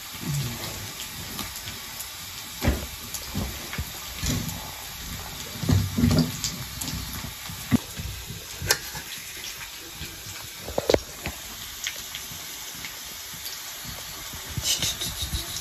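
A steady low hiss of cooking on a mud stove, with scattered clicks and knocks of steel plates and utensils being handled, and a quick clatter near the end.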